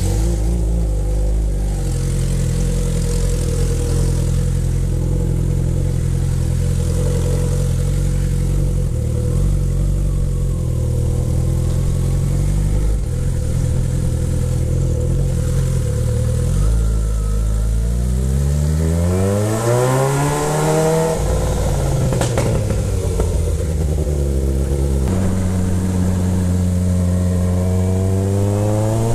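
Suzuki motorcycle engine running at low, steady revs, then pulling away. The revs climb, drop suddenly at a gear change about twenty-one seconds in, and climb again near the end.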